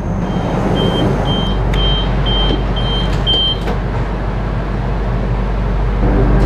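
Steady hum and rumble of a KTM Komuter electric train's interior while it stands at a station, with a run of six short high beeps, about two a second, in the first half: the door-closing warning. A few sharp clicks come in among the beeps.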